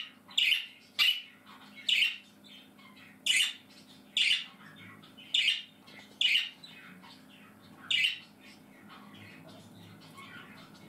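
Budgerigar giving about nine short, sharp calls, roughly one a second, which stop about eight seconds in.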